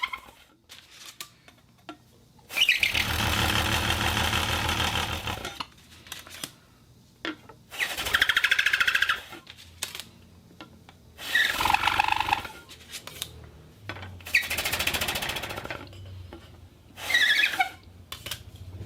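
Homemade glass bottle and metal plate whistle blown in five separate blasts, the first about three seconds long and the rest shorter. Each blast has a buzzing, rattling edge under its pitch.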